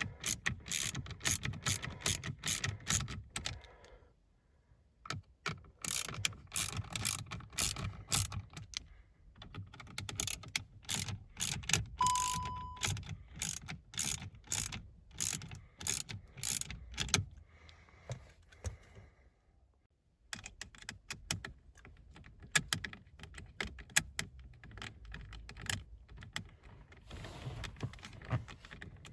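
Ratchet clicking in quick runs, with short pauses between, as small Torx bolts holding a steering column clock spring are undone. A short beep sounds about twelve seconds in.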